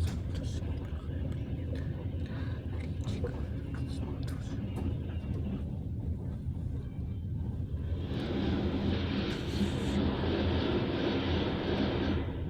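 A steady engine-like hum, with a louder rushing noise that starts about eight seconds in and cuts off abruptly near the end.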